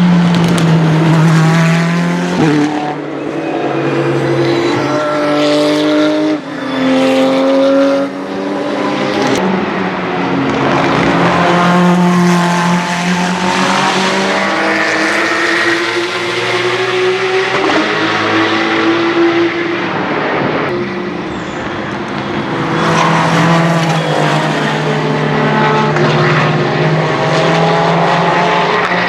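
Race cars at full speed, including the Ferrari 488 GT3 Evo's twin-turbo V8, passing one after another. The engine notes climb in pitch and break off several times as the cars shift or lift.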